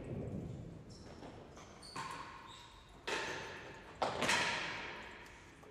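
Real tennis rally: the ball struck by rackets and bouncing off the court's walls and floor, three sharp hits about a second apart from about two seconds in, the last the loudest, each echoing in the enclosed court.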